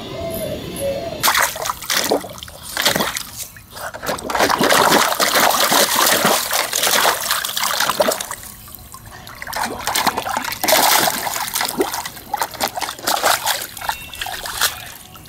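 Water splashing and sloshing in a plastic kiddie pool as a Boston terrier paws at it. The splashing comes in uneven bursts with short lulls.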